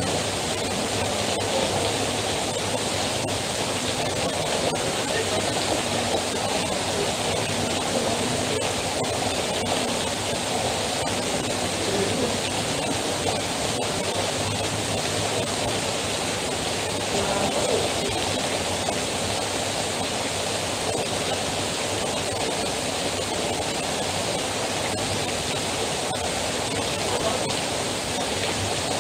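Heavy rain falling steadily, with runoff pouring off the edge of a roof canopy: an even, unbroken rush of water.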